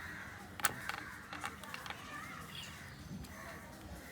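A few light clicks and taps of game pieces being flipped and set down on the board, over a faint murmur of voices.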